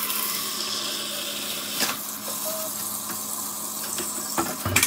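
Kitchen tap running into a plastic bowl, the water splashing over raw meat pieces being rinsed. There is a steady rush with a couple of light knocks, and the flow drops away at the very end.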